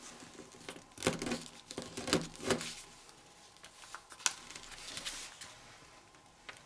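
A sheet of printer paper rustling and crinkling as fingers fold and crease it, in irregular crackles. A busier stretch comes between about one and three seconds in, and one sharp click a little after four seconds.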